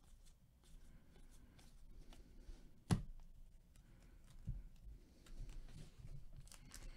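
Faint rustling and sliding of trading cards handled by gloved hands, with scattered light ticks as cards and packs are laid down. One sharp tap about three seconds in is the loudest sound, and a softer thump follows a second and a half later.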